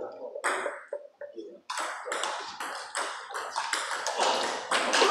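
Table tennis balls being struck by rubber-faced paddles and bouncing on the tables in rallies on more than one table. A few separate hits come first, then from about two seconds in a quick, continuous run of pings and taps as the rallies overlap.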